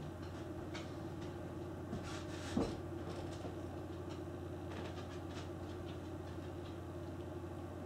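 Hot agar-agar solution poured in a thin stream from a blender jar into a plastic container: a faint trickle over a steady low hum, with a light knock about two and a half seconds in.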